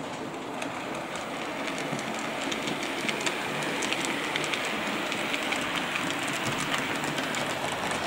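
Model steam locomotive and coaches running along the track, a steady whirring rattle with many small clicks of the wheels over the rail joints, growing louder as the train approaches.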